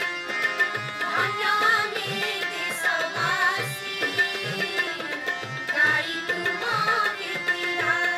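Group of women singing a song in chorus to a harmonium, with a drum keeping a steady beat.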